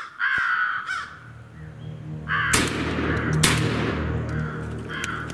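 Crows cawing repeatedly, with two loud shots about a second apart midway through, each ringing out briefly.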